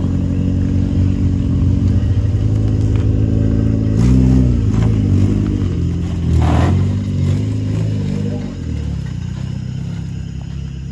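Turbocharged Toyota Corolla's engine running, with blips of the throttle about four seconds and six and a half seconds in before it settles back.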